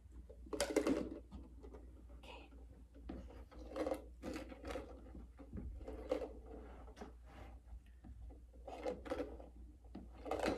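Small plastic containers with screw lids being picked up and set down on a carpet, amid soft footsteps: a string of light, irregular knocks and rustles.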